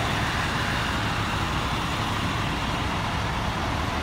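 Fire engines' engines running close by: a steady vehicle noise with a low rumble, no single event standing out.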